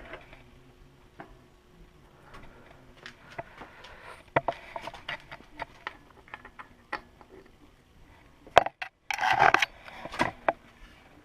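Tools and bike parts being handled while a pedal is fitted to a crank: scattered light clicks and taps with short scrapes, then a sharp knock and the loudest sound, about half a second of scraping, a little past halfway.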